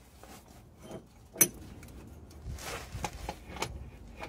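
Metal clicks and light knocks as a bolt beside the starter is twisted and worked by a gloved hand. There is one sharp click about a second and a half in, and a run of smaller clicks in the second half.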